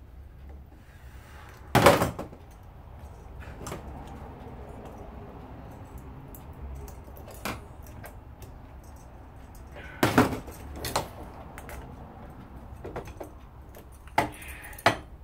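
Sharp knocks and metallic clinks from handling the parts of an electric lawnmower motor while its windings are unwound: a loud knock about two seconds in, another about ten seconds in, and two more near the end, with lighter clicks between.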